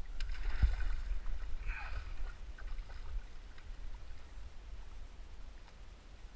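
Water splashing as a hooked rainbow trout thrashes at the surface beside the landing net, mostly in the first two seconds, over a steady low rumble.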